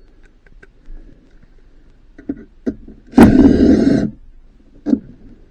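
Cordless power driver spinning out a dash screw in one loud burst of about a second, after a few light clicks as the bit and extension are set on the screw.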